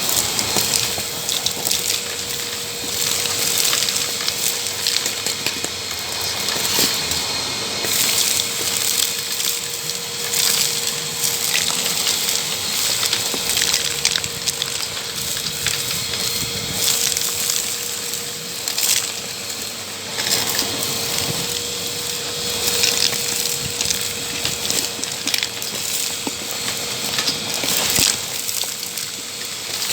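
Makita VC3011L 1000-watt construction vacuum running steadily while sucking up sand and small concrete stones, with debris clicking and rattling through the hose.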